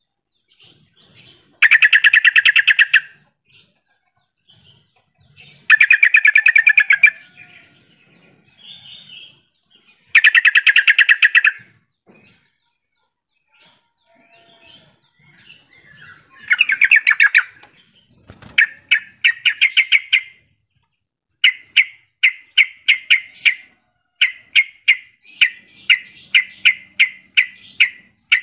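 Yellow-vented bulbul (trucukan) singing. It gives four bursts of rapid chattering notes, each about a second and a half long and a few seconds apart. From about two-thirds of the way in it changes to strings of short, separate notes at roughly three a second.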